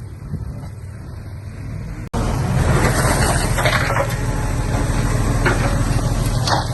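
Heavy diesel earthmoving machinery running with a low, steady rumble. About two seconds in the sound cuts abruptly to a louder engine rumble with some scraping and clanking.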